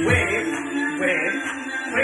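Dance music: the drum beat drops out just after the start, leaving a sung melody over a held note, and the bass comes back in at the end.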